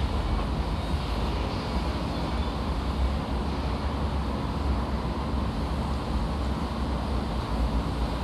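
Construction-site machinery noise: a steady, deep engine rumble with no distinct knocks or impacts.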